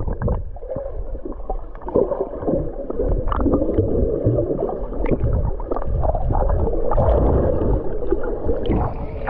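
Muffled underwater sound from a GoPro held below the sea surface while a swimmer moves: water churning and gurgling, dull, with hardly any high sound.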